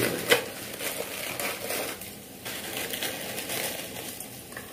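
Plastic instant-noodle packet crinkling and crackling as it is handled in the hands, irregular, with a sharper crackle about a third of a second in.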